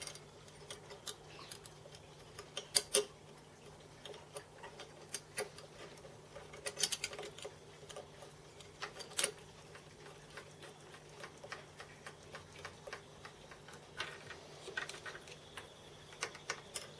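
Scattered, irregular light clicks and taps of parts and hand tools being handled while a cross feed screw support is fitted up. A faint steady hum sits under them.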